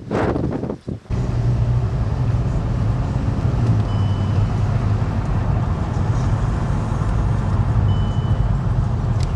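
Motor vehicle engine running with a steady low drone, as heard while driving. Two short high beeps sound about four seconds apart.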